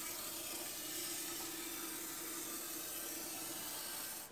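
Aerosol can of cavity wax spraying through a long extension wand: a steady hiss that cuts off suddenly at the end.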